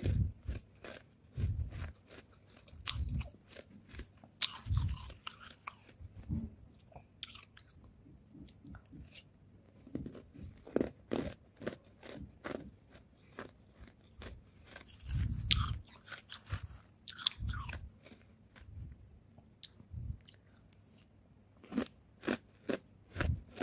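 Close-miked chewing and crunching of powdery freezer frost: icy crystals crackling between the teeth in irregular bites and chews, a second or two apart.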